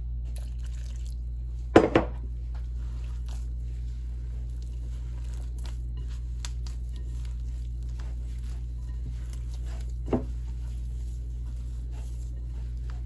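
Hands kneading and squishing masa dough in a bowl, with soft wet clicks, as more water is worked in. A loud double knock about two seconds in and a smaller knock about ten seconds in, over a steady low hum.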